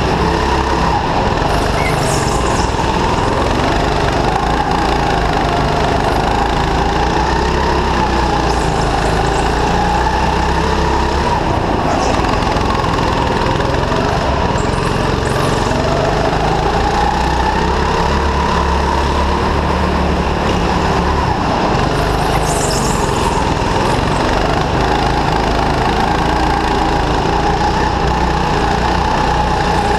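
Go-kart engine running hard on board the kart, its pitch rising and falling as the throttle opens and closes through the corners. A few brief high-pitched squeals cut in now and then.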